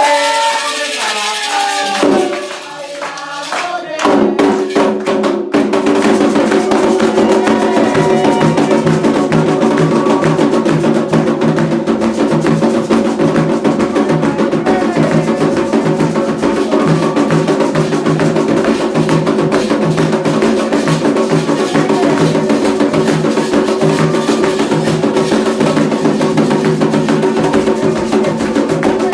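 Candomblé ceremonial music: voices singing briefly, then from about four seconds in a steady drum-and-percussion rhythm plays on.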